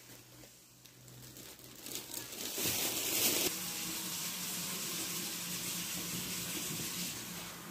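Cold water poured from a glass over sliced apples and sugar in an aluminium pot. It starts about two seconds in, loudest for the first second, then runs on steadily until near the end.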